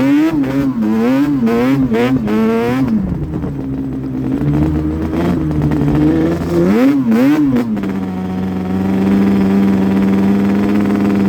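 Yamaha Banshee 350's two-stroke parallel-twin engine revving in quick blips, pitch rising and falling several times in the first three seconds. It drops to a lower, steadier pitch, gives two more quick revs about seven seconds in, then holds a steady pitch.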